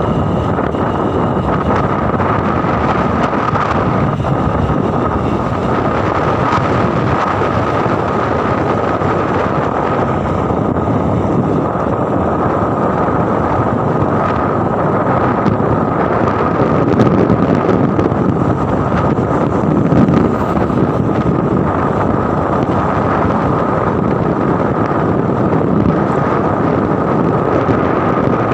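Wind buffeting the microphone of a phone carried on a moving vehicle, over steady road and engine noise. A thin, steady high whine runs through it.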